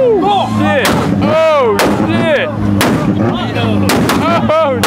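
Loud sharp bangs about once a second, two coming close together near the end. Between them, wavering squealing tones rise and fall over a steady low drone.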